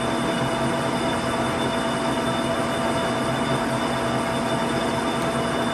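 1981 LeBlond 26" x 144" hollow-spindle lathe running under power, the headstock gearing giving a steady whine over an even mechanical hum.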